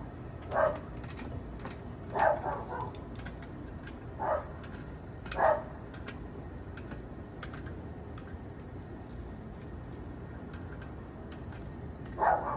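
Neighbor's dogs barking at a distance: single barks a second or two apart, a pause, then another bark near the end. Faint irregular clicking runs underneath.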